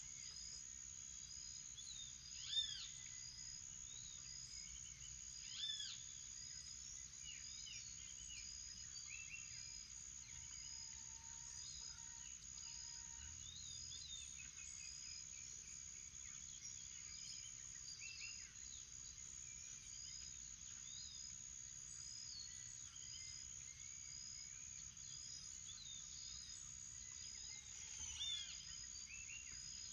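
Morning chorus of wild birds over a steady high insect drone, with short high chirps repeating about once a second. Louder arching bird calls ring out about two and a half seconds in, near six seconds, and again near the end.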